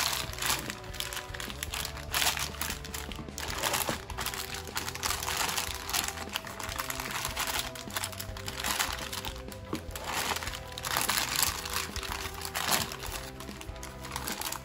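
Clear plastic packaging bags crinkling and rustling again and again as hands handle the bagged figure parts, over background music.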